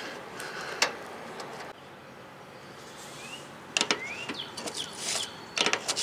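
Scattered clicks and light knocks of hands and a screwdriver working in an RV furnace's outside access compartment as an inner cover plate comes out, with a couple of short faint bird chirps.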